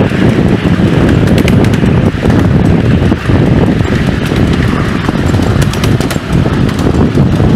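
A 7¼-inch gauge miniature steam train running at speed, heard from the car right behind the locomotive: a loud, steady rumble with a rhythmic clatter of wheels on the rails and many small clicks.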